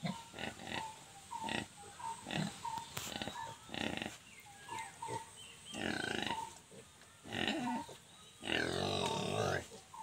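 Black Nepal-breed pigs and piglets grunting, a quick run of short grunts with longer calls about halfway through and again near the end.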